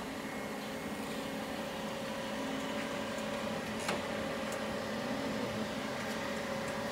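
TOS BPH 300 hydraulic surface grinder running idle: a steady, even hum of its motors and pumps with no roughness, and a faint click about four seconds in.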